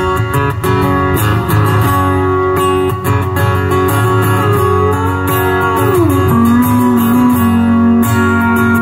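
Live band playing a song's instrumental intro through a PA: strummed acoustic guitar with keyboard, and a lead line that glides down in pitch about five seconds in and then holds a long note.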